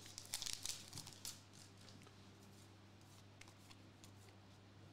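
Faint crinkling of a foil trading-card pack as it is peeled open and the cards slide out, mostly in the first second or so, then only soft ticks of the cards being handled.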